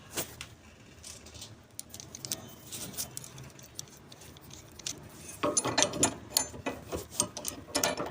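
Metallic clicking and clinking of hand tools and a steel stabilizer link being worked into place on a car's front sway bar: a few scattered clicks, then a quick irregular run of sharp clicks and knocks from about five and a half seconds in.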